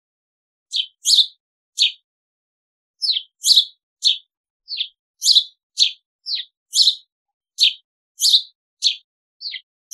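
House sparrow chirping: a series of about fifteen short, high-pitched chirps, roughly two a second and unevenly spaced.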